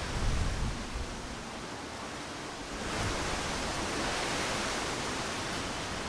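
Strong wind rushing through a leafy tree canopy, a steady noise of tossing leaves. There is a brief low rumble at the start, and the rush swells into a stronger gust about three seconds in.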